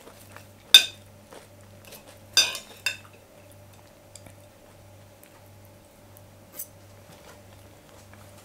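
Cutlery clinking against a plate while eating: one sharp clink just under a second in, a few more around two and a half seconds in, and a faint one later.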